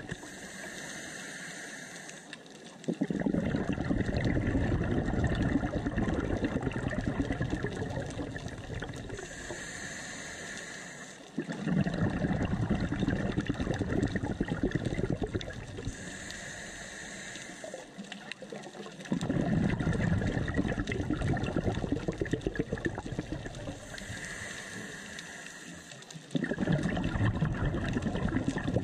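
Scuba diver breathing through a regulator underwater. Each breath is a hissing inhale followed by a loud gush of exhaled bubbles that tapers off, about every seven to eight seconds, four breaths in all.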